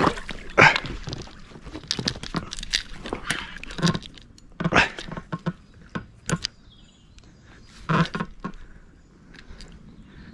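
Irregular knocks, rustles and splashes as an angler in a float tube plays a hooked fish on a hard-bent rod, with the strongest bursts about half a second in, near the middle and near the end.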